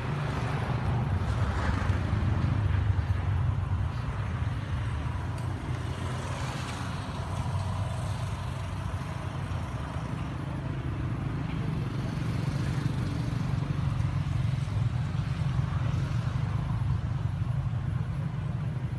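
Steady low rumble of outdoor background noise, heaviest in the bass and unchanging throughout.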